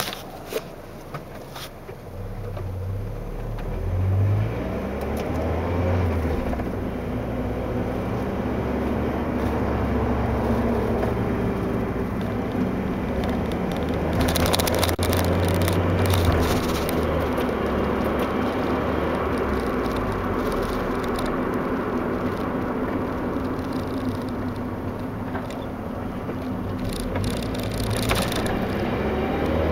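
Mazda Miata's four-cylinder engine and road noise heard from inside the cabin while driving, building up about two seconds in after a few clicks. A plastic rattle from the camera comes and goes.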